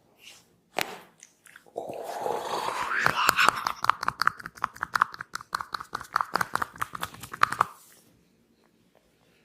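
Fingers rubbing and scrunching hair against the scalp close to the microphone during a head massage, a dense crackling crunch of rapid little snaps lasting about six seconds and stopping abruptly. A single sharp click comes just before it.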